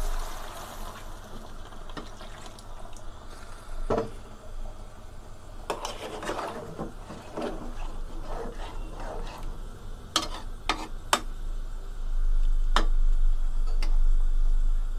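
Water poured into a metal pot of curry, then a metal spatula stirring through the jackfruit and shrimp and scraping and knocking against the pot in scattered clicks. A steady low hum grows louder near the end.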